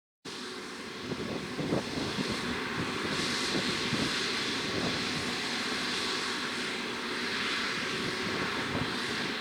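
John Deere 6R 185 tractor's six-cylinder diesel engine running steadily under load while pulling a six-furrow plough through tough ground, with some irregular clatter.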